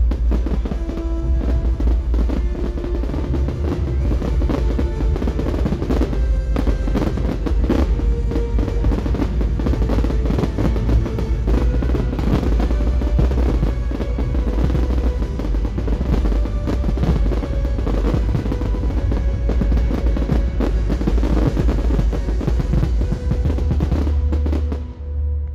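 Fireworks finale barrage: shells and mines firing and bursting in rapid, overlapping bangs and crackles over a deep rumble. It cuts off abruptly near the end.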